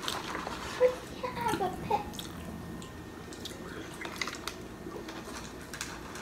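Soda being sipped through a plastic straw from a fountain-drink cup, with soft swallows and small clicks from the mouth.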